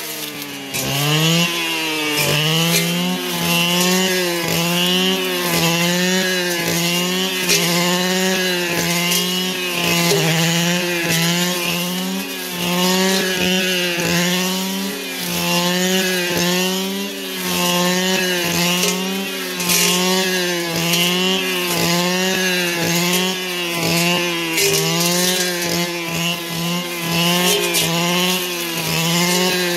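Two-stroke brush cutter running at high revs, its engine note dipping and recovering every second or two as it swings under load through the cut. About a second in it drops lower and then revs back up.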